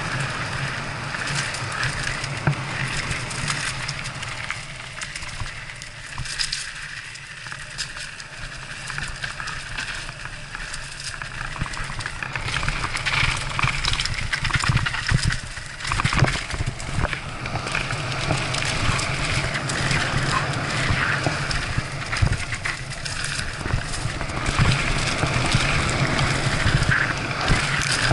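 Mountain bike riding fast down dirt singletrack: tyres on dirt, wind rushing over the microphone, and the bike rattling over bumps, with a cluster of sharper knocks about sixteen seconds in.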